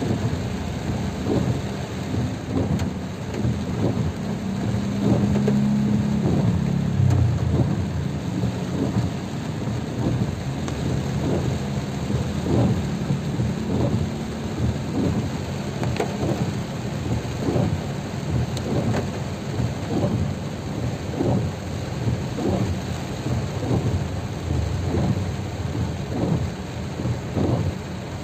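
Heavy rain drumming on a car's roof and windshield, heard from inside the cabin as a steady wash of noise with many small knocks. A low hum runs underneath for roughly the first ten seconds.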